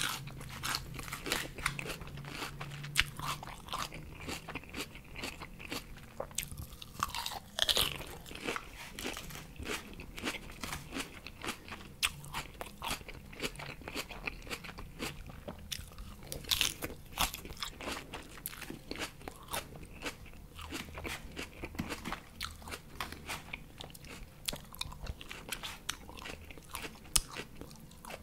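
Close-miked chewing of crisp lettuce leaves: a continuous run of wet crunches and crackles, with a few sharper bites standing out.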